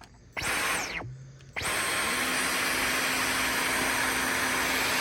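Dyson V15 Detect cordless stick vacuum switched on briefly, its motor whining up and winding down within about a second. It is then switched on again about a second and a half in and runs steadily with a high whine over the rush of air.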